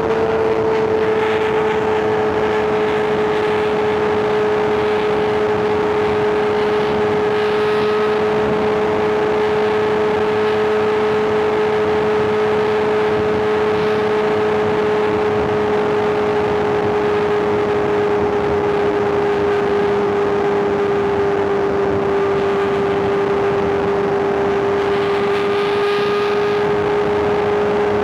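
Inline-four superbike engine running at steady revs while riding, one strong held note that drifts slowly a little lower, over a constant rush of noise.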